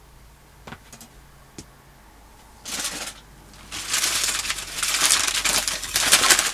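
A few light clicks of small parts being handled, then from about two and a half seconds in, loud crinkling and rustling of packaging as parts are unwrapped.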